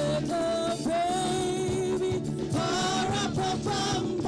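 A worship team singing a gospel song: a woman's lead voice holds long, high notes with vibrato and slides between pitches, over backing voices and steady accompaniment.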